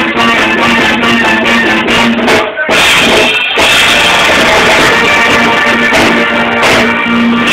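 Live band music from the bandstand, played loud through the PA speakers.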